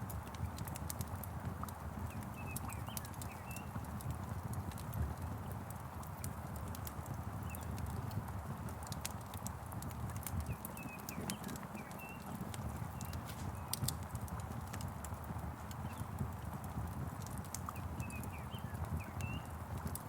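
Wood fire crackling, with frequent sharp pops over a low steady rumble and hiss of rain. Short bird chirps come in small clusters a few times.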